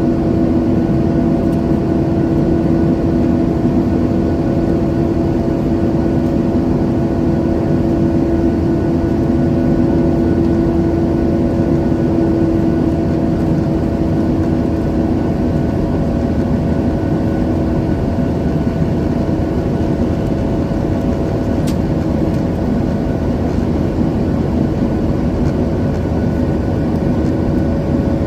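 Boeing 737-900ER's CFM56-7B turbofan engines heard from inside the passenger cabin: a loud, steady rumble with several held tones. One of the tones fades out about two-thirds of the way through.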